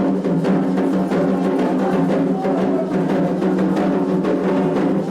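Candomblé atabaque drums playing a steady ritual rhythm, with a bell and a group chanting over the drums.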